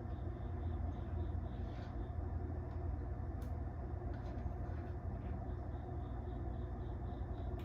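A steady low hum, with a couple of faint ticks over it.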